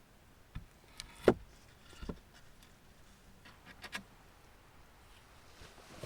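Wooden shelter door being handled and swung, giving a few short wooden knocks and clunks. The loudest comes about a second in, with a brief creak, and a quick pair of knocks follows near the middle.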